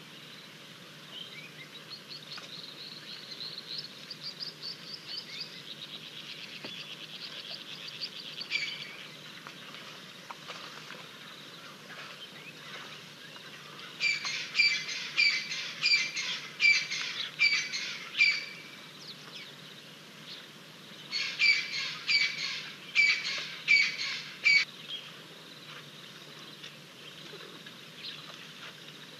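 Wild birds calling: soft, rapid high chirping for the first several seconds, then two bouts of loud, evenly repeated sharp notes at about two a second, each bout lasting a few seconds with a short gap between them.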